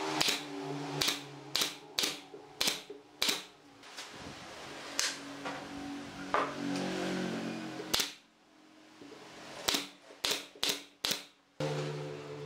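Pneumatic nail gun firing nails into a wooden frame: about a dozen sharp shots, six in quick succession at the start, two more spaced apart in the middle, and four in a quick run near the end.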